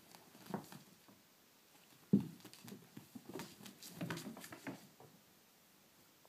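Two playing kittens scuffling and scrambling: soft thumps and light pattering of paws. The loudest thump comes about two seconds in, followed by a run of quick taps that stops about five seconds in.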